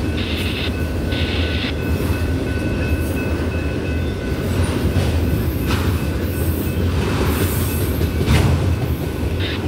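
Empty autorack freight cars rolling past with a steady low rumble of steel wheels on rail. A thin, high wheel squeal runs through the first few seconds, and a few sharp clanks come later.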